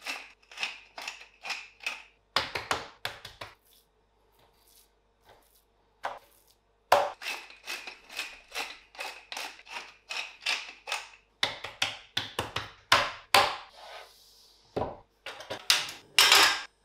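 Wooden pepper mill grinding black pepper over pork steaks: quick rasping turns, about three to four a second, in two runs with a pause between. Near the end a stainless frying pan is set on a portable gas stove with a loud metal clatter.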